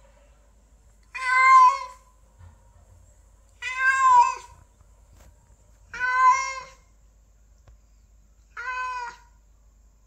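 Orange tabby cat meowing four times, about two and a half seconds apart; the last meow is shorter and quieter.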